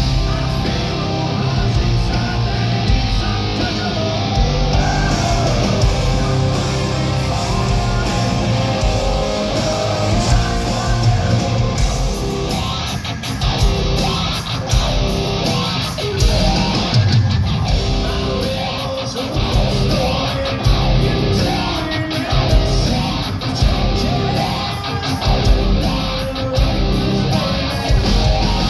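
A hard rock band playing loud and live, led by distorted electric guitar over a full band; from about twelve seconds in, sharp regular beats cut through.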